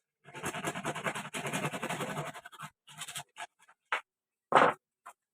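Scratchy rubbing for about two seconds, with a fast flutter in it, then several short scrapes and knocks, the loudest about four and a half seconds in.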